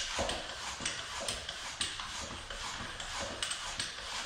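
Bicycle floor pump worked by hand, about two strokes a second, each stroke a short hiss of air, inflating a newly fitted inner tube in a dirt jump bike's front tyre.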